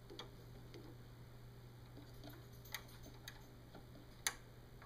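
Faint, scattered clicks and taps of a cotton swab and fingers working over the tape path and head block of an Akai X-150D reel-to-reel tape deck, with a few sharper ticks in the second half, the loudest near the end. A low steady hum runs underneath.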